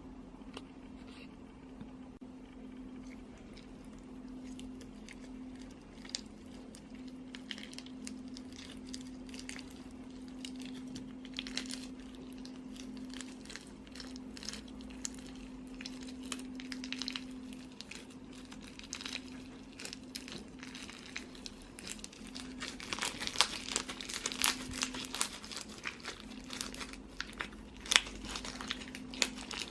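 Slime (Crystal Audrey slime) being squeezed, stretched and pressed by hand, giving a stream of small crackling clicks and pops that grow denser and louder about three-quarters of the way through. A steady low hum runs underneath.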